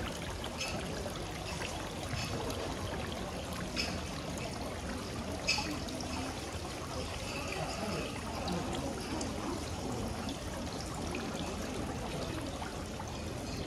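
Steady trickle of running water, with a couple of sharp clicks along the way.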